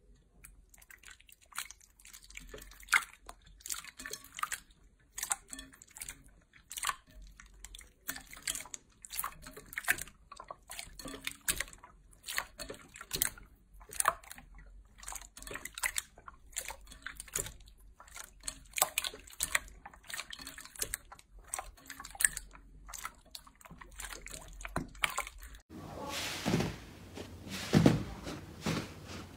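Hands squishing and kneading clear glitter slime in a bowl: irregular wet, sticky squelches and small pops. About 26 s in, the sound changes to a denser, continuous crushing as fingers press into a large soft watermelon squishy toy.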